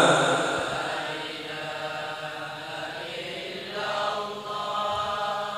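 Soft, slow Islamic devotional chanting, with drawn-out notes held longer near the end.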